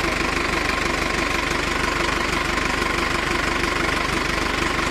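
Mahindra Arjun Ultra-1 555 DI tractor's four-cylinder diesel engine running steadily at a constant low speed, with no revving.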